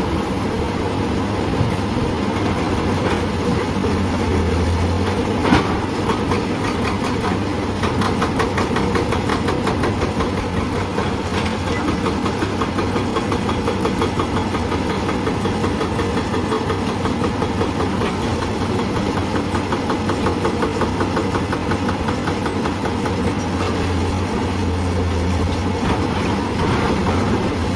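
Hydraulic breaker on a Hyundai excavator hammering on rock in a rapid, even stream of blows over the excavator's diesel engine running steadily, with a single sharp knock about five seconds in.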